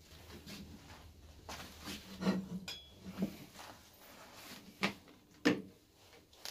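Plasma-cutter torch and its cable being handled and laid down on a metal workbench: a series of light knocks and clunks, the two sharpest about five seconds in.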